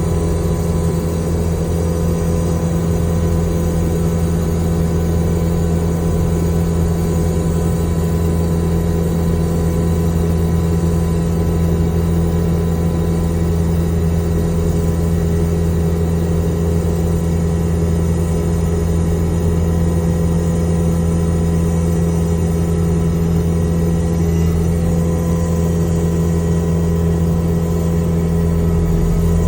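New Holland C345 compact track loader's diesel engine running steadily at constant revs, powering a Jenkins Iron and Steel hydraulic stump grinder grinding out a cedar stump. A steady, unchanging drone with no pauses.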